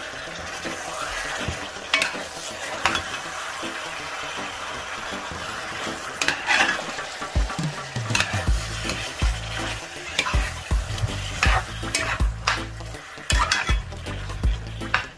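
Jamaican stew chicken sizzling in its own thick brown sauce in a metal pot as a wooden spoon stirs and scrapes through the pieces. Irregular dull knocks join in from about halfway through.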